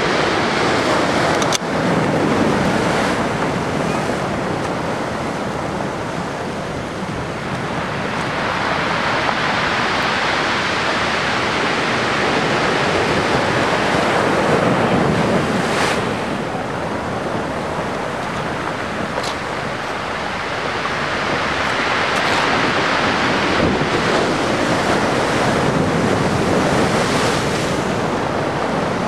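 Ocean surf breaking and washing, the rush swelling and easing every several seconds, with wind buffeting the microphone.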